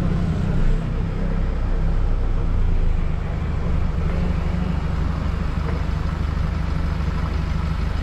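Steady engine and road noise of a car driving, a constant low rumble.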